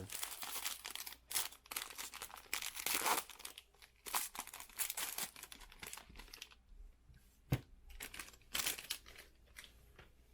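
Plastic packaging crinkling and trading cards rustling as they are handled, in dense irregular crackles that thin out after about six seconds, with a single sharp click about seven and a half seconds in.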